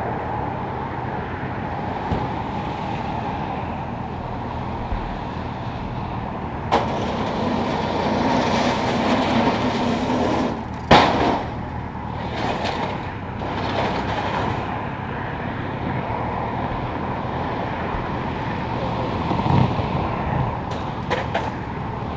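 Steady noise of freeway traffic passing at speed, with a few sharp knocks. The loudest is a bang about halfway through, followed by a few seconds of scraping.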